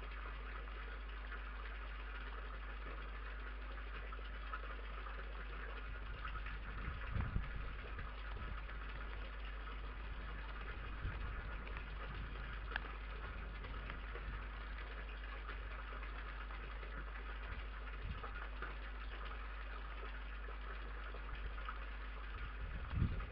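Steady low electrical hum with hiss, with a few soft low thumps about seven seconds in and again near the end.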